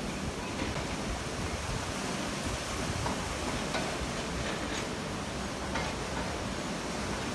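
Steady hiss of heavy rain falling, with a few faint scattered ticks of drops.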